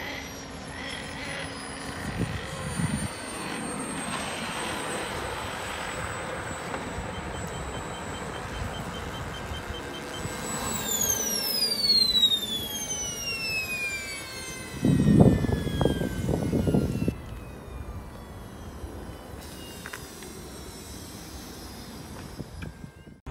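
Radio-controlled F-16 model jet's engine giving a high whine that sinks slowly, then winds down in a long falling whine after about ten seconds, the jet on the ground after landing. A loud low rumble lasts about two seconds past the middle.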